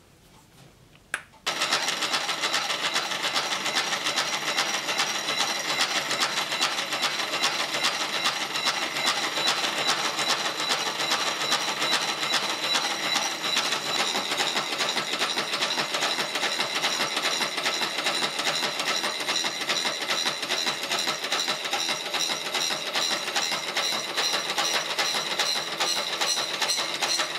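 Milling machine driving a radiused slitting saw through an aluminium bronze crosshead, cutting a slot: a steady, dense cutting noise with a steady high tone. It starts abruptly about a second and a half in.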